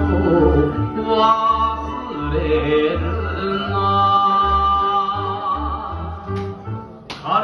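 Recorded Japanese song music: a melody of long held notes over a regular low beat.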